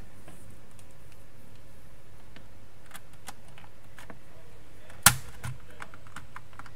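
Scattered light clicks and one sharp click about five seconds in, from power and HDMI cable plugs being pushed into a PS4 console.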